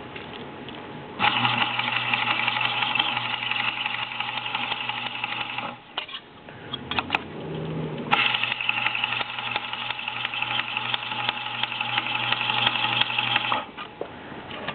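Lap-Sharp sharpening system's spinning abrasive disc, wet with lubricant, grinding the edge of a steel card scraper held against the toolbar. It comes as two steady runs with a low hum, each about five seconds long, with a short break between them.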